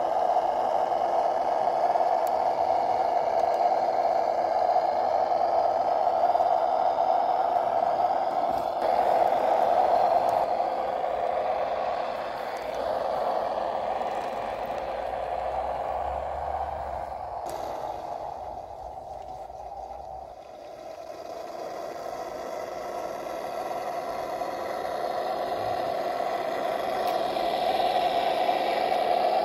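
RC scale GAZ-66 truck driving off-road. Its Das Mikro TBS Mini sound module plays a simulated truck engine through small onboard speakers, over the whine of its brushed electric motor and gears and the scrape of its tyres on dry ground. The sound fades as the truck moves away, about halfway through, and grows louder again as it comes back.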